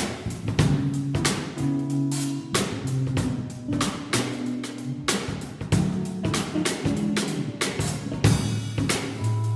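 Music with a busy drum-kit beat over a bass line.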